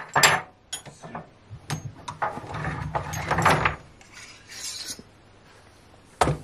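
Metal sprayer parts and hose being handled on a workbench: a few sharp clicks and knocks of metal fittings, then a longer rubbing, scraping sound as the metal suction tube and its hose are lifted, and a knock near the end.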